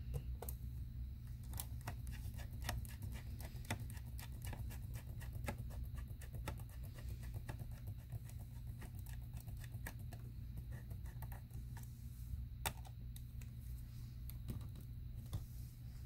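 Small screwdriver turning screws into the metal frame of a Mac Mini: a quick run of light clicks and scrapes from the bit in the screw heads. The clicks thin out over the last few seconds, with one sharper click near the end.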